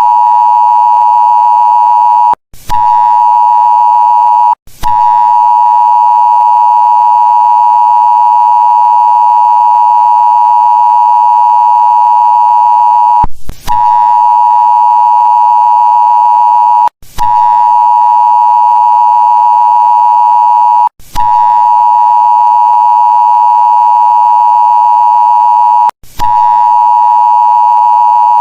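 Loud, steady electronic alert tone of the emergency-broadcast kind, pitched around 1 kHz. It cuts out briefly and restarts about six times.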